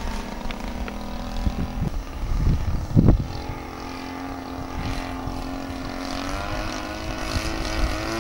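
Engine of a radio-controlled aerobatic model plane droning in flight, its pitch wavering as the plane manoeuvres and rising near the end. A brief low rumble on the microphone about three seconds in.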